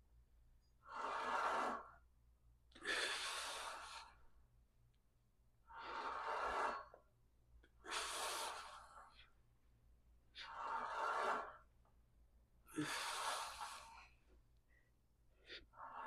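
A man breathing hard through his mouth with the effort of each rep of an incline barbell press: one forceful breath about every two seconds, six in all, with another starting near the end.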